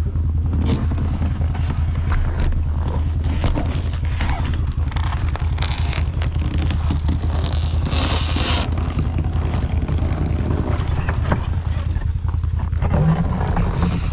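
A motor vehicle's engine running steadily with a low, even, pulsing hum, with some scraping and rustling over it, most noticeable about eight seconds in.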